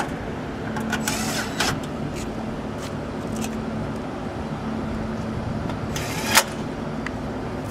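HVAC equipment running with a steady hum. Two brief rushing, scraping noises come over it, one about a second in and one near six seconds, the second ending in a sharp knock.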